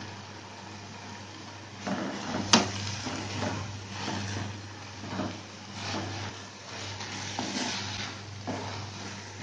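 Wooden spatula stirring and scraping drumstick leaves and onions around a metal kadai, in repeated strokes from about two seconds in, with one sharp knock against the pan shortly after the stirring starts. A steady low hum runs underneath.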